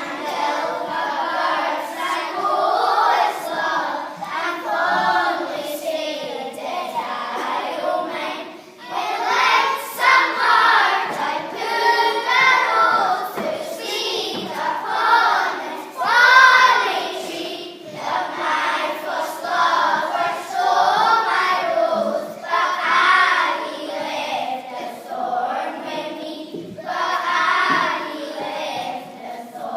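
A group of young children singing a song together in unison, phrase after phrase with short breaths between.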